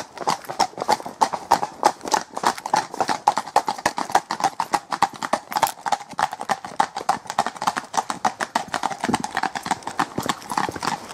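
Several horses' hooves clip-clopping on a tarmac lane: a quick, irregular run of sharp knocks.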